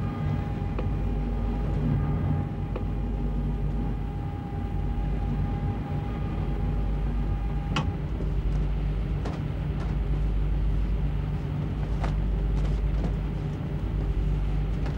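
Steady low machinery drone aboard a warship, with a faint high tone that stops about eight seconds in. A few sharp metallic clicks and knocks sound over it, the clearest two near the middle.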